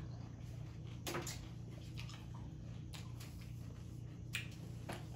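Faint eating sounds: a person chewing a mouthful, with a few soft clicks, over a low steady hum.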